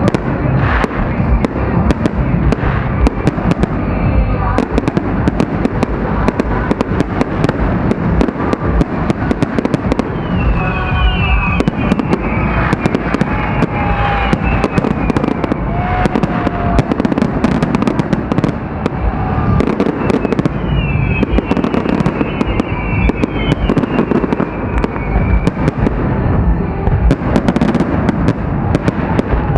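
Festive fireworks display: a dense, unbroken barrage of bangs and crackles. Twice, clusters of high falling whistles sound over the bangs.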